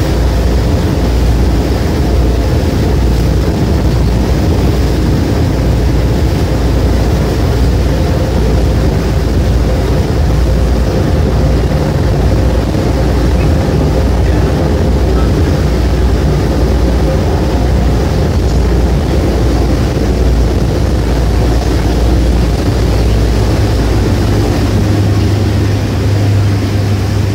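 Engine of a river passenger boat running steadily under way, heard on board: a loud, deep rumble with a faint steady hum above it. Near the end a low hum grows stronger.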